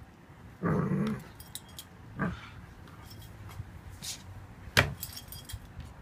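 Seven-month-old Ibizan Hound playing on its back and making growly grumbling noises: a throaty grumble about half a second in and a short falling yelp around two seconds. Collar tags jingle in between, and a sharp click near five seconds is the loudest sound.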